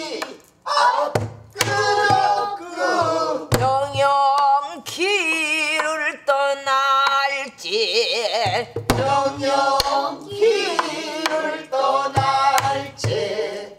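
Pansori singing in the jungjungmori rhythm, the voice held in long notes with wide vibrato, over irregular strokes on a buk barrel drum.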